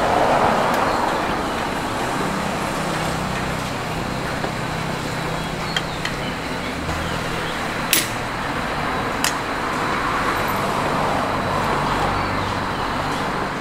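Steady road traffic with an engine running, and a few sharp clicks or clinks, the loudest about eight seconds in.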